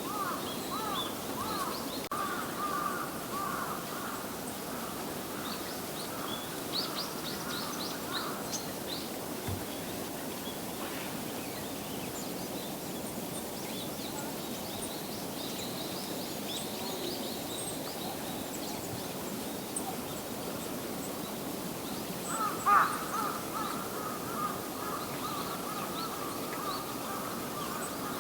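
Wild birds calling over a steady outdoor background: runs of harsh repeated calls at the start and again in the last third, with high thin chips between them.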